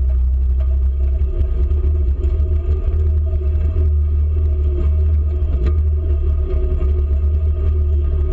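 Polaris Ranger utility vehicle running steadily while driving, a loud, constant low rumble with a steady engine drone above it.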